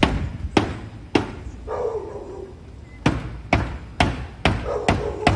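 Repeated sharp bangs, roughly two a second, of blows struck on a parked car. They pause for about two seconds in the middle, where a short cry is heard.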